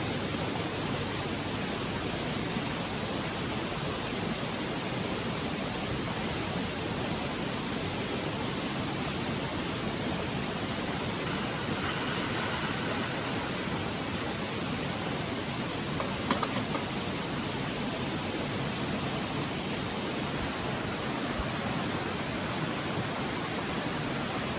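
Petromax HK500 kerosene pressure lantern burning, its pressurised burner giving a steady hiss, with a single small click partway through.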